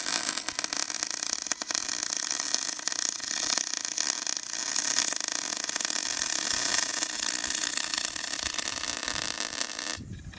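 Wire-feed (MIG) welding arc, a steady dense crackle and sizzle that runs for about ten seconds and then cuts off suddenly as the trigger is released.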